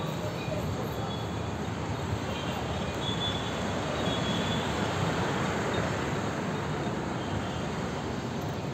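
Steady din of city road traffic from the street below, with a few brief high-pitched tones.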